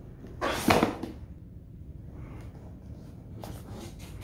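Cardboard laptop box being lifted and turned on edge by hand. About half a second in there is a short scrape and rub of cardboard, the loudest moment, followed by a few lighter taps and rubs.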